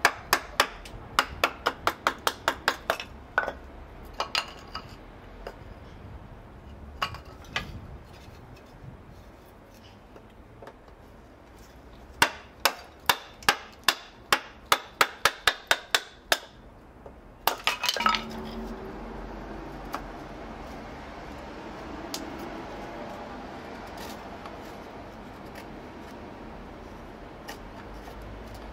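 Knife being batoned down through a stick of wood with a wooden baton: quick runs of sharp, clinking knocks, about four or five a second, splitting the stick. From about two-thirds through, the knocks give way to a quieter, steady scraping as the knife shaves curls off the split wood.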